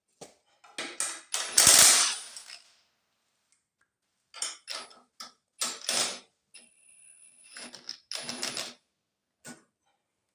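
Hand tools working the bolts of a lawn mower's starter: a loud run of rapid clicks about two seconds in, then scattered sharp metal clicks and knocks, with a short faint whine in the middle.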